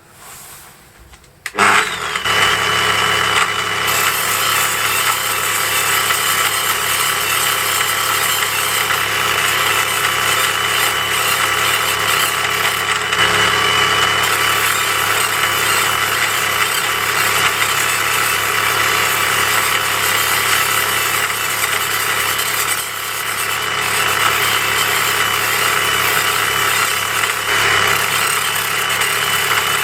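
A homemade wet grinding machine switches on about a second and a half in and runs steadily with a constant whine, grinding a piece of fibrous calcite on a 200-grit diamond pad under a water drip.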